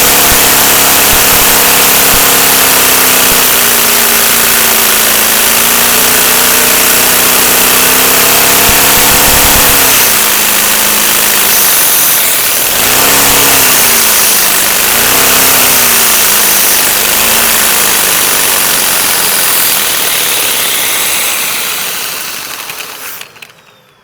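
LEGO pneumatic two-cylinder boxer engine running at high revs on vacuum: a wavering, pitched whirr over a loud rush of air. Its speed dips several times in the second half, then it winds down and fades out near the end.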